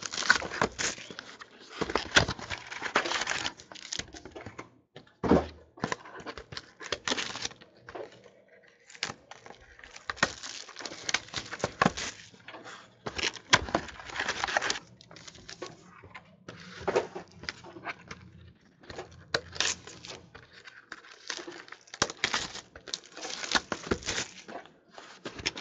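Clear plastic shrink wrap being torn off a trading card box and crumpled in the hands: an irregular crackling and crinkling that comes and goes in short spells.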